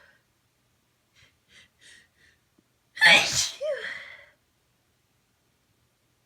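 A person's loud sneeze about three seconds in, induced by tickling the nose with rolled-up tissue. It is preceded by a few quick, faint breaths and ends in a short voiced tail.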